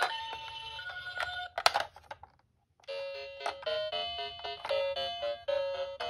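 A toy ambulance's electronic two-tone siren, alternating between two pitches, stops with a click about one and a half seconds in. After a short gap, a chiming electronic tune of short beeping notes begins.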